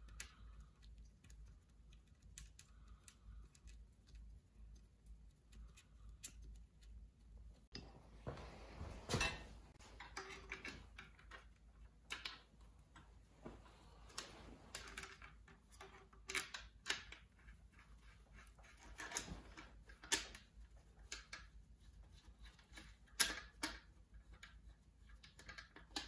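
Light, irregular metal clinks and taps of a wrench on the oil line fittings under a Mopar flathead six block, with a longer stretch of scraping and rattling about eight to ten seconds in.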